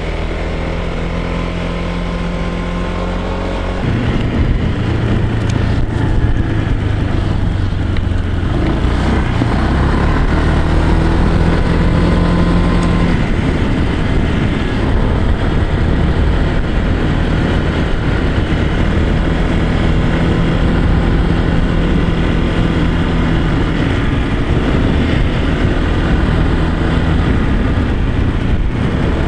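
Honda PCX125 scooter's single-cylinder engine running while riding, with wind and road noise on the handlebar-mounted microphone. It gets louder about four seconds in.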